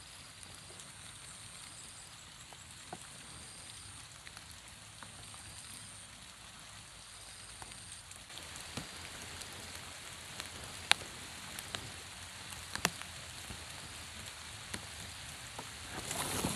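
Steady light rain falling on the pond and the grass, with scattered sharp drops landing close by. The rain gets a little heavier about halfway through, and there is a brief louder rustle near the end.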